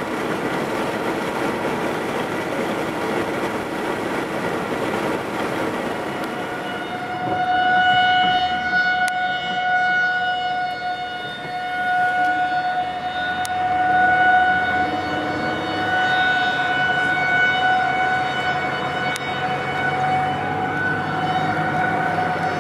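Outdoor tornado warning siren sounding a steady wailing tone, coming in about seven seconds in over a rushing noise. Its loudness swells and fades every couple of seconds.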